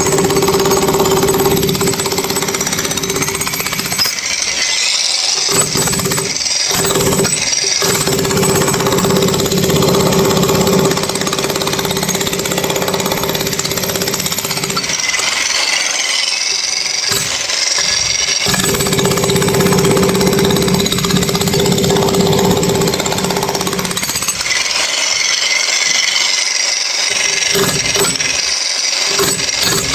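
Electric demolition hammer chiselling a concrete floor slab: rapid hammering against the concrete with a steady motor whine, which breaks off several times and starts again.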